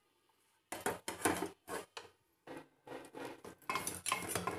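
Wooden spatula scraping and knocking against a stainless steel kadai while stirring a thick, crumbly mix of roasted gram flour and sugar syrup. Irregular strokes begin under a second in, after a brief silence.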